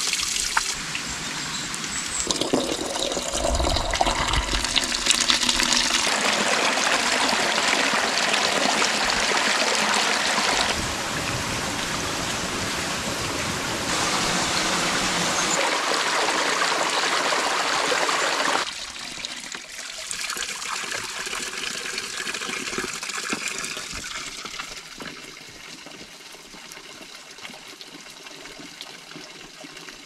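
Running water: a spout pouring from a pipe in a stone wall and a small stream splashing over mossy rocks. It comes as a series of short shots that change abruptly, and it grows quieter in the last third.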